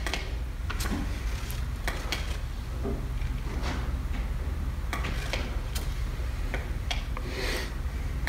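Scattered light clicks and knocks at irregular intervals over a low steady hum.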